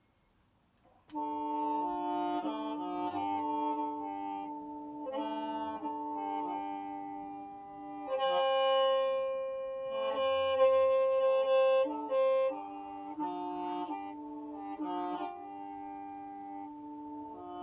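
Hmong qeej, a free-reed bamboo mouth organ, being played: several pipes sound together in sustained chords that change note every second or so. It breaks off for about a second at the start, and a single strong low note is held for several seconds midway.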